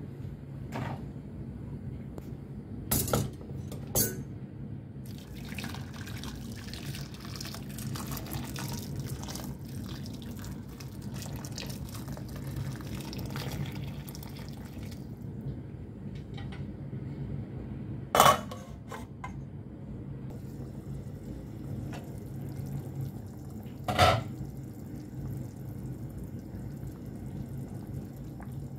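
Water poured from a jug into a stainless-steel pot of chicken drumsticks, a steady pour lasting about ten seconds. Sharp metal clinks come just before the pour and twice more later, over a steady low hum.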